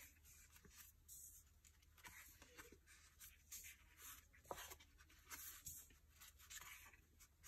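Near silence, with faint rustling and light ticks of paper sticker sheets being turned and handled in a spiral-bound sticker book.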